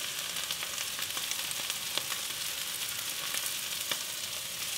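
Stir-fry pan sizzling steadily as chicken and freshly added vegetables cook over high heat, with scattered sharp pops and crackles.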